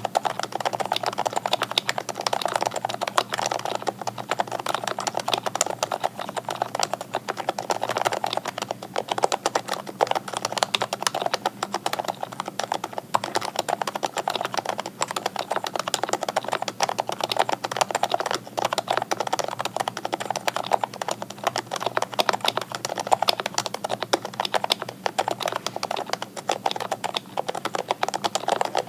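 Custom-built mechanical keyboard being typed on quickly and without a break: a dense, steady stream of key clacks.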